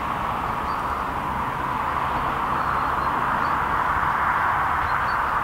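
Steam locomotive approaching from a distance, its working heard as a steady rushing that grows a little louder.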